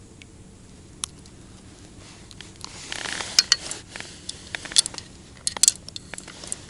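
Hands unhooking and handling a wet, freshly caught crucian carp: scattered sharp clicks and wet squelches, busiest from about halfway in.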